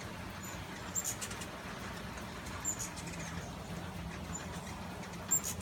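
Hummingbirds giving short, very high squeaky chips and chatters, about five times, over a steady hiss of rain.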